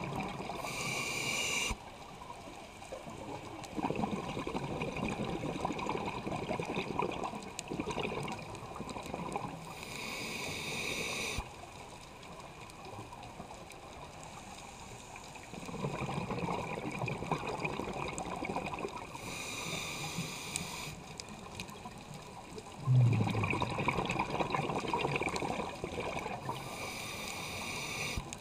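Scuba diver breathing through a regulator underwater, heard close up: a short hissing inhale about every nine seconds, four in all, each followed by several seconds of bubbling exhale. One exhale starts with a sharp low burst.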